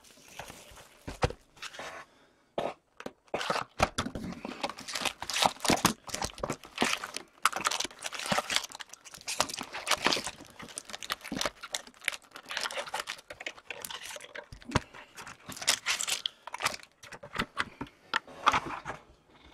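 Packaging of a 2015-16 Fleer Showcase hockey card box crinkling, rustling and tearing as the box is unwrapped and opened and its foil-wrapped packs are pulled out and stacked, in a quick string of short crackles.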